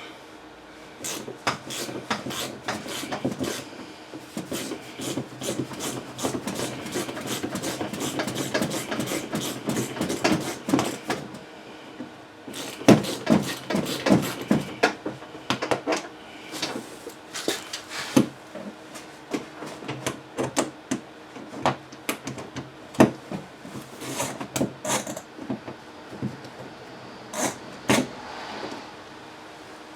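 Hand tools working a tight nut on an outer door handle inside a car door: irregular clicks, scrapes and metal knocks, densest in the first half.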